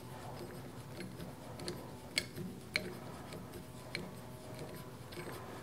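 A screwdriver turning a long M6 screw into the motor shaft's end to draw an aluminium step pulley onto the shaft: a handful of faint clicks at irregular intervals. A faint steady drone of neighbours' lawn equipment sits underneath.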